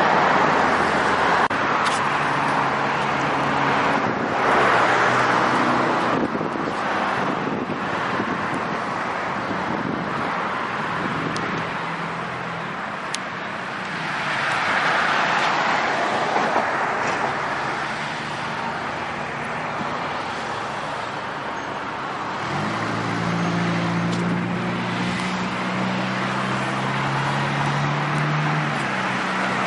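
Road traffic: cars passing on a street, the tyre and engine noise swelling and fading several times. Near the end a vehicle engine hums steadily for about six seconds.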